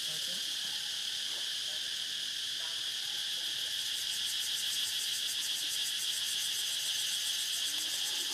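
A steady, high-pitched chorus of insects, with a fast pulsing buzz joining in about four seconds in.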